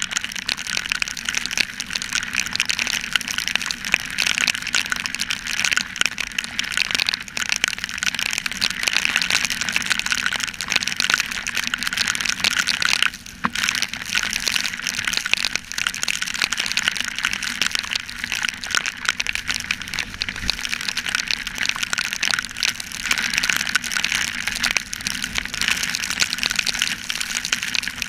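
Heavy rain and wet-road spray hissing steadily, with raindrops crackling on the helmet camera's housing, on a motorcycle moving at speed. The noise dips briefly about halfway through.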